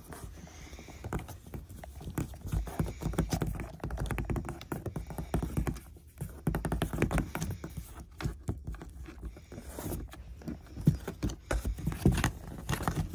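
Cats' paws batting, scrabbling and thumping on a cardboard box: a run of irregular taps, knocks and scuffs on the cardboard.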